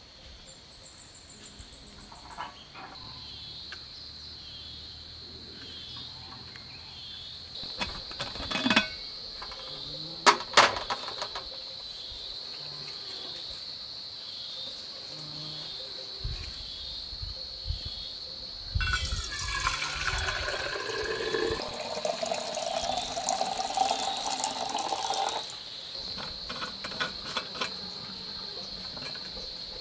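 Insects trilling steadily and high. A few sharp knocks come about a third of the way in, and water rushes for about six seconds around two-thirds of the way through.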